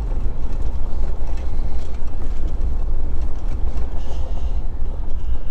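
Pickup truck driving on a back road: a steady low rumble of engine and tyres.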